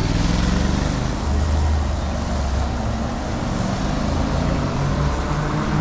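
City street traffic heard from a bicycle: motor vehicle engines running close by with a steady low hum, over continuous road noise.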